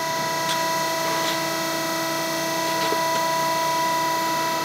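Press brake running, its motor giving a steady hum with several fixed tones while the steel strip is bent, with a few faint ticks.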